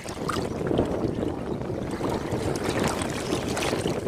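Ocean waves washing onto a beach: a steady rushing wash that swells just after the start and stays up.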